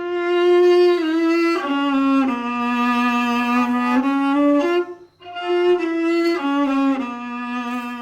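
Recycled violin built with a fork, played solo with the bow: slow, long held notes stepping downward in two short phrases, with a brief break about five seconds in.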